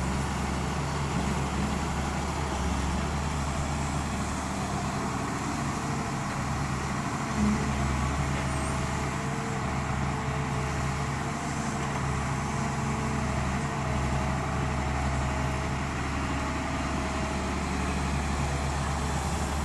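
Doosan 140 excavator's diesel engine running steadily under work, with a brief louder knock about seven and a half seconds in.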